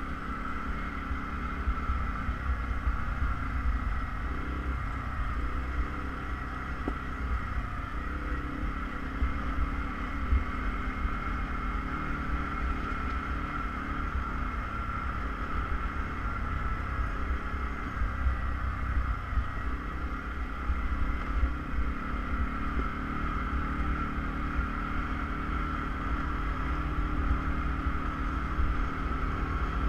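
ATV engine running steadily under way, with a constant low rumble and a steady mid-pitched drone, wind buffeting the microphone.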